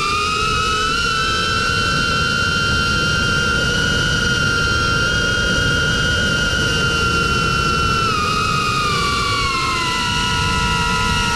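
Diatone Taycan cinewhoop's brushless motors on a 6S battery whining through their ducted props, several close pitches together over a steady rush of prop wash. The pitch climbs a little in the first second, holds, then drops about eight seconds in and picks up again near the end as the throttle eases and returns.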